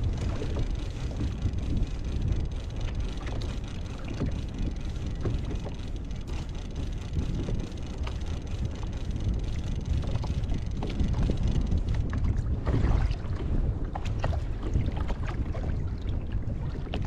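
Strong wind buffeting the microphone with a steady low rumble, with waves slapping and splashing against a kayak on a rough sea.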